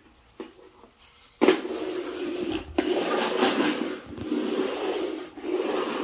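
Toy monster truck's wheels rolling and rubbing across a hardwood floor, pushed hard in about four strokes of roughly a second each, starting about a second and a half in.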